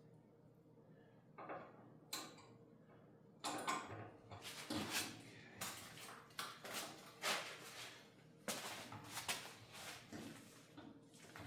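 Metal parts and tools being handled: a string of clanks, knocks and rattles, two single ones at first and then many in quick succession from about three and a half seconds in.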